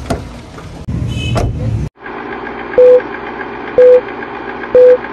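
A countdown-leader sound effect: short, loud single-pitch beeps, one each second, three in all, over a steady whirring noise with a fast light ticking. Before it, about two seconds of handling noise with a couple of sharp clicks, cut off abruptly.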